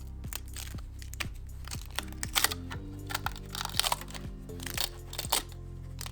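Background music with a string of sharp, irregular plastic clicks and crackles: 3D-printed plastic parts being handled.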